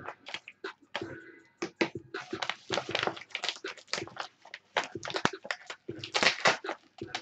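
Yellow padded mailer being torn open by hand: irregular tearing, rustling and crinkling of paper and plastic, loudest about three seconds in and again around six seconds in.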